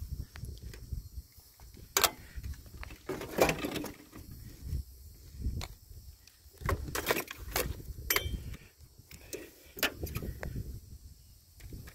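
Irregular light knocks and clicks over a low rumble, a few of them sharper, such as about two seconds in and around seven to eight seconds in: handling noise from a handheld camera being carried around a ride-on mower.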